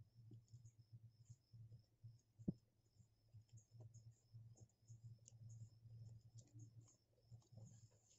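Faint rustling and soft clicks of macrame cord being handled and knotted by hand, with one sharper click about two and a half seconds in, over a low hum.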